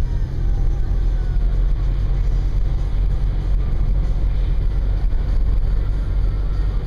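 Car driving on an uncleared, snow-packed highway: a steady low rumble of engine and tyres.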